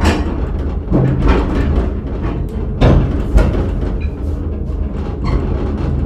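Small tourist train running along its track, a steady rumble with a few sharp knocks.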